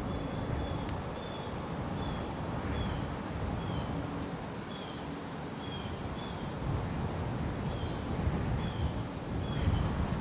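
Wind gusting against the microphone, with a bird repeating a short, slightly falling high call about every three-quarters of a second.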